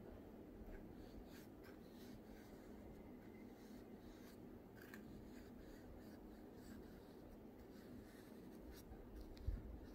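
Faint rustle of a bamboo calligraphy brush dragging ink across paper, with a few soft scratchy ticks over a low hum. A brief low thump comes near the end.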